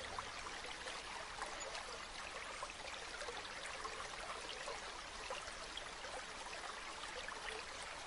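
River water rushing steadily, an even hiss flecked with many small splashing ticks.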